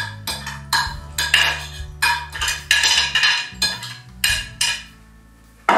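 Metal spoon scraping and clinking against the inside of a glass container while scooping out stewed onion in tomato sauce. Quick, sharp strokes come about three a second, then stop about a second before the end.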